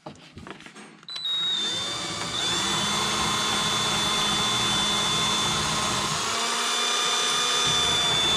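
Electric drill boring a pilot hole through the wooden board of an attic-stair frame. It starts about a second in, speeds up with a rising whine, then runs steadily under load.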